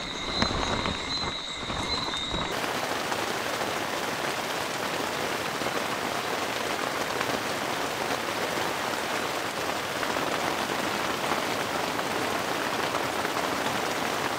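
Rain falling steadily, a dense even hiss, during a thunderstorm. For the first couple of seconds there is low rumbling with a few knocks and a thin high tone, then the sound changes abruptly to the rain alone.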